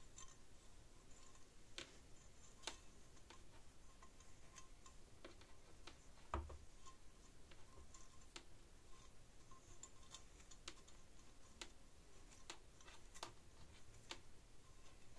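Faint, irregular small ticks and clicks of a thin copper wire being threaded through a hole in a rusty steel spade blade and twisted tight. One soft thump about six seconds in, the loudest sound.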